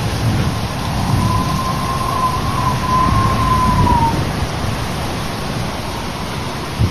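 Cyclone-force wind and driving rain, a dense steady rush with heavy low rumble and buffeting. From about one to four seconds in, a thin high whistle wavers over it and dips away.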